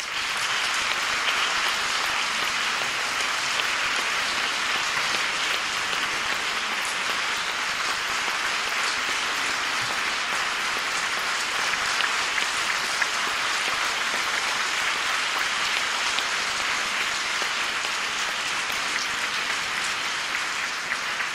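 Audience applauding steadily, thinning near the end into scattered separate claps.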